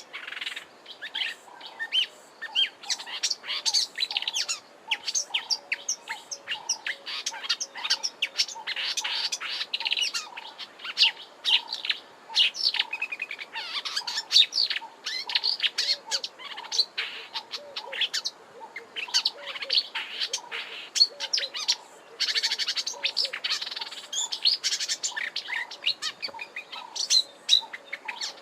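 Marsh warbler singing a fast, rambling warble of short varied notes, with repeated phrases and mimicry of other birds.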